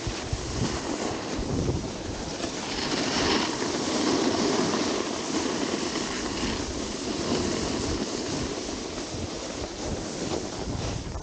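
Wind rushing over the microphone while a snowboard slides and scrapes across groomed snow. The steady rush swells a little about three seconds in, then settles.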